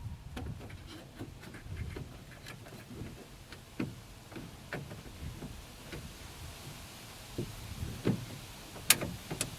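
Irregular small clicks, taps and rubbing as hard plastic parts of a Ford Windstar interior door handle assembly are worked loose from their hooks by hand, with one sharper click near the end.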